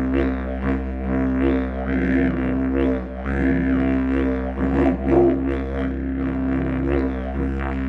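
Didgeridoo in B, made by Paco Moreno, playing a very low continuous drone. It pulses rhythmically about twice a second, and its upper overtones sweep up and down as the player shapes his mouth.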